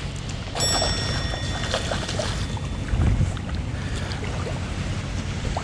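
Boat engine running with a steady low rumble and water splashing, with a short high tone about half a second in.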